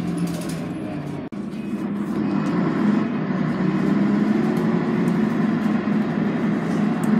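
Scania N113CRB bus engine and drivetrain heard from inside the passenger cabin, a steady drone with a strong low hum. It breaks off abruptly a little over a second in, then carries on louder.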